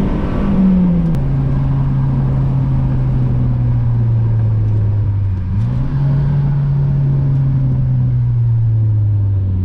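Honda H22A inline-four engine of an Accord wagon under way, its note steady with no speech over it. The pitch drops about a second in, sinks slowly, jumps up sharply around the middle, then sinks slowly again, as with gear changes and easing off the throttle.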